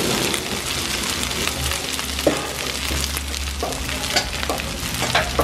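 Cooked white rice frying in hot oil in a wok, a steady sizzle, with a few sharp clicks from about two seconds in.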